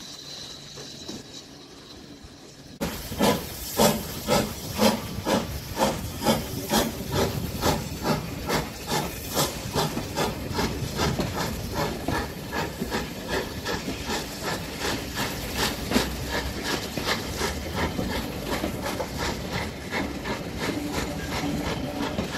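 Steam locomotive pulling a train away, its exhaust chuffing in sharp regular beats that come faster and faster as it gathers speed. The chuffing starts suddenly about three seconds in, after a faint background hush.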